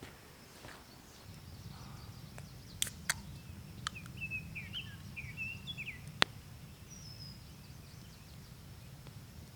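Bird calls: a run of short chirps through the middle, over a low steady rumble, with a few sharp clicks, the loudest about six seconds in.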